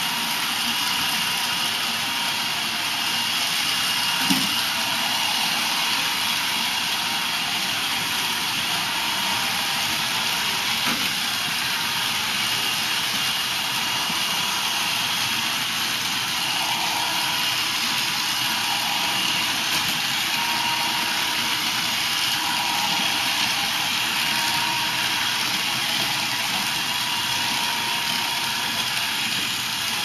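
iRobot Roomba robot vacuum running steadily, its motors and brushes whirring with a faint high whine. A short knock about four seconds in.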